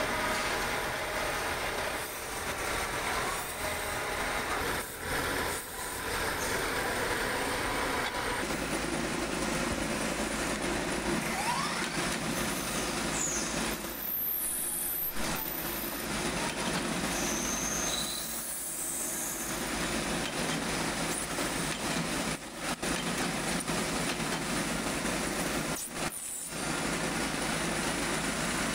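Steady mechanical noise of factory machinery running. It breaks off briefly and suddenly several times, and its character changes about eight seconds in.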